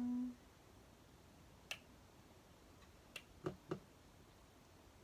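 A steady held hummed note stops just after the start. Then come a few faint, sharp clicks and taps: one at about 1.7 seconds, another a little after 3 seconds, and a quick pair around 3.5 seconds.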